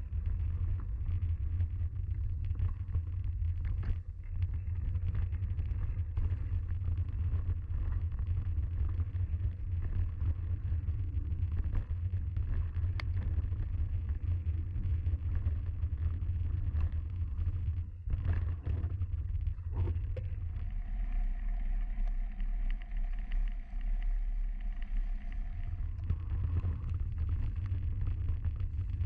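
Mountain bike riding a dirt and leaf-strewn forest trail: wind rumbles on the bike-mounted camera's microphone over tyre and trail noise, with a few sharp knocks from the bike. Past the middle the rumble drops for about five seconds and a steady whine comes in.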